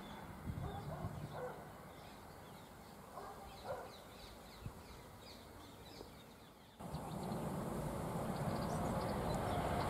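Birds chirping over a quiet rural background. About seven seconds in the sound changes abruptly to the rush of a Frecciarossa 1000 high-speed train approaching, growing steadily louder.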